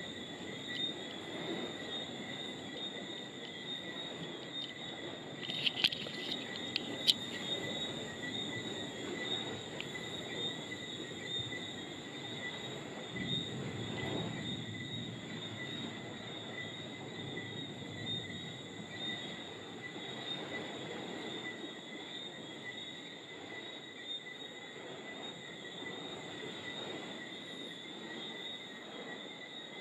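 Night insect chorus, a steady high-pitched chirring throughout over a low background haze. A few sharp clicks come about six to seven seconds in, and a brief low rumble swells and fades around the middle.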